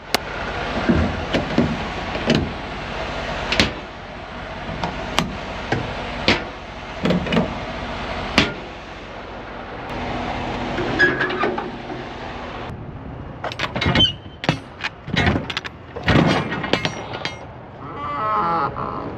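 A truck engine running steadily, with many sharp knocks and bangs scattered over it.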